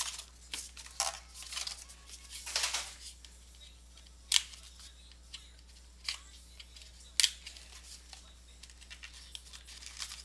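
Cardboard trading-card box and its inner case being opened and handled, with rustling and scraping of cardboard. Three sharp clicks stand out: the loudest about four seconds in, and others at about six and seven seconds.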